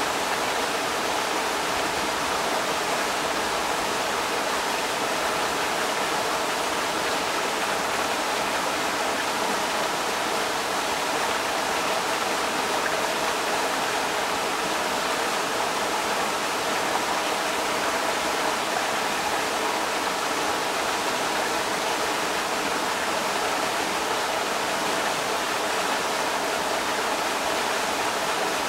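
Creek water rushing steadily over rocks, an even unbroken hiss.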